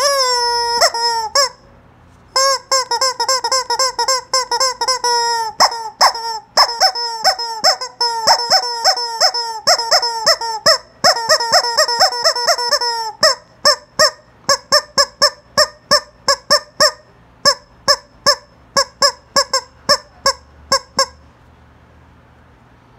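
Yellow rubber screaming-chicken toy squeezed again and again: long honking squawks that bend up and down in pitch for the first half, then a fast run of short squeaks, stopping a couple of seconds before the end.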